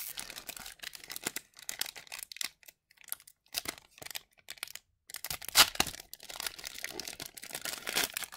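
Hockey card pack wrapper crinkling and tearing, with cards rustling as they are handled. It eases off in the middle, then comes back with a sharp rustle about halfway through.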